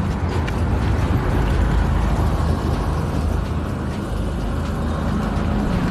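Steady low rumble of street background noise, even in level throughout.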